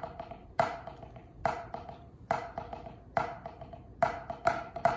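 Drumsticks striking a rubber drum practice pad in a steady rhythm: loud accented hits about every second, with quieter taps in between, the pattern growing busier near the end.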